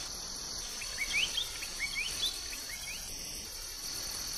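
Steady, high-pitched chorus of night insects, crickets by their sound, with a quick run of short rising chirps from about one to two and a half seconds in.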